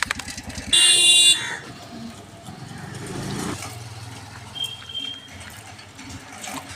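Street traffic: a motorcycle engine runs with a fast, even beat and stops just under a second in, then a vehicle horn sounds once for about half a second, the loudest thing here, followed by quieter passing traffic.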